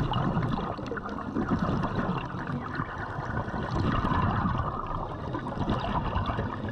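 Underwater noise heard through a diving camera's housing: a steady, muffled rush of water with some gurgling.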